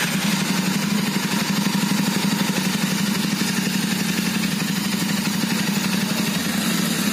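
Royal Enfield Interceptor 650's 648cc parallel-twin engine idling steadily through its stock chrome silencer, an even low beat that holds without revving.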